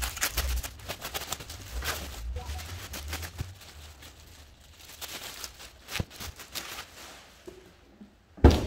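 Bubble wrap and a plastic bag rustling and crinkling as a bucket race seat is unwrapped and pulled out of its packaging, busiest in the first few seconds. A single loud thump comes near the end.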